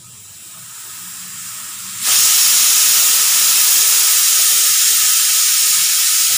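Steam hissing steadily, building for about two seconds and then jumping suddenly to a loud, full blast.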